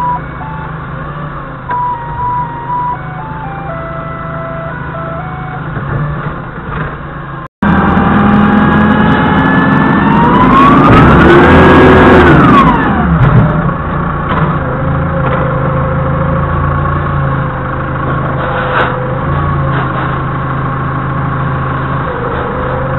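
Doosan 4.5-ton forklift engine running, then revving up with a rising hydraulic whine that holds for about two seconds and falls back, as the mast works under load. It then settles back to a steady idle.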